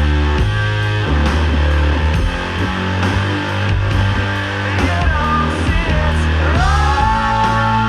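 Doom and sludge metal: heavy guitars hold low notes that shift every second or so. About two-thirds of the way through, a high note slides up and holds to the end.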